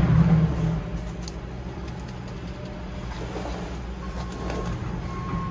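A steady low rumble, loudest in the first second and then even, with faint scrapes and light ticks from hands pressing potting soil down in a bonsai pot.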